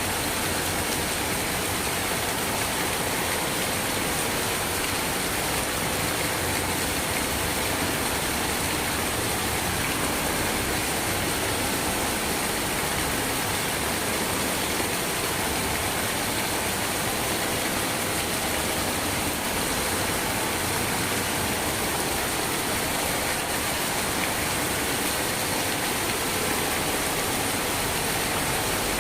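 Steady rain, a dense even hiss of falling water that holds at one level without let-up.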